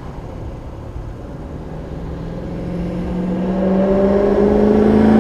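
A road vehicle approaching on the street, its engine and tyre noise growing steadily louder through the second half.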